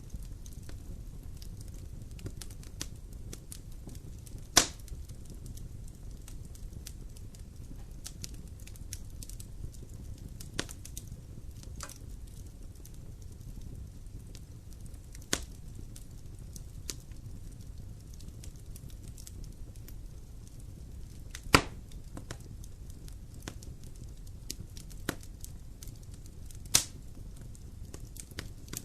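Wood fire burning in a fireplace: a steady low rumble with scattered crackles and three sharp, loud pops.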